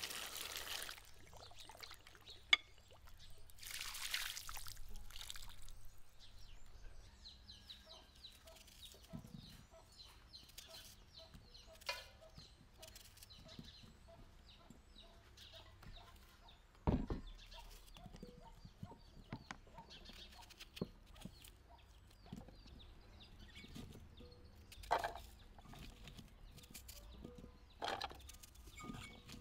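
Tap water running into a glass bowl of peeled boiled eggs at the start, then soft knife clicks and knocks as the eggs are cut over the bowl, with one louder knock about halfway through. Hens cluck now and then in the background.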